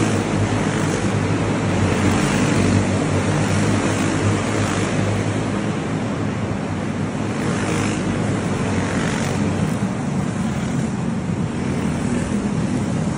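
A pack of clone-engine racing karts running laps, their single-cylinder four-stroke engines making a steady mixed drone that swells several times as karts pass close by.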